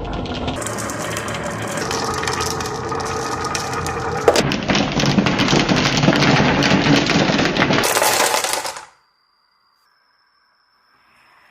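Many marbles rolling and clacking down a rain-gutter and wooden-rail marble run, a dense continuous rattle that grows louder about four seconds in. It cuts off abruptly about nine seconds in, leaving near silence.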